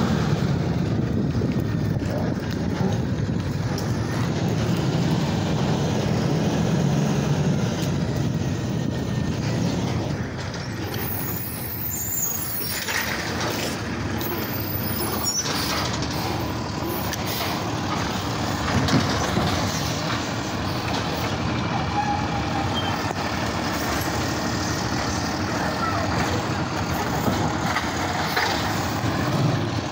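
Automated side-loader garbage truck running as it works along the curb picking up carts, with hissing bursts about ten seconds in and a run of clunks soon after.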